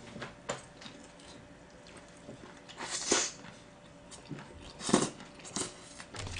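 Close-miked chewing and lip smacking as a mouthful of gwamegi wrapped in raw seaweed is eaten: scattered wet smacks and clicks, loudest about three seconds in and again near five seconds.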